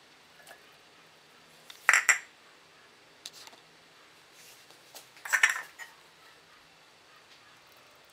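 A bowl knocking and scraping against the rim of a glass blender jar as chopped fruit is tipped in: two short bursts of clattering knocks, about two seconds in and again about five and a half seconds in, with a few faint clicks between.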